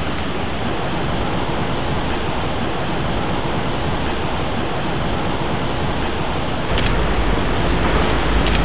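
Steady outdoor city street ambience, a rushing roar of traffic and wind on the microphone. About two-thirds of the way in it steps up louder and deeper, with a couple of faint clicks near the end.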